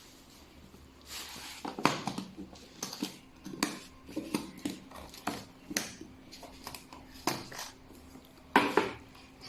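Electric chiropractic spine adjustment gun firing repeated impulses: a run of sharp clicks, some in quick pairs, about half a second to a second apart, over a faint steady hum.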